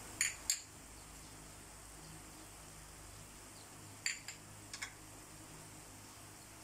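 Faint steady sizzle of a tomato and onion masala base frying in a non-stick pan, broken by a few light clicks of a wooden spoon and small spice bowls knocking against the pan: two just after the start and a quick cluster of four about four seconds in.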